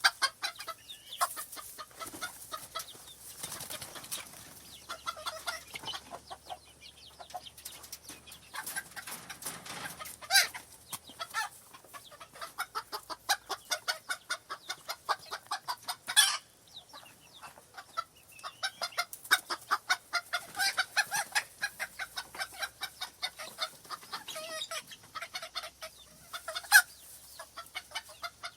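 Farm chickens clucking in a steady, busy chatter, with a few louder single calls standing out now and then.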